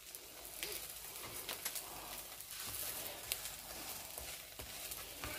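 Egg-coated wheat tortillas frying in a nonstick pan: a faint, steady sizzle with scattered crackles and pops.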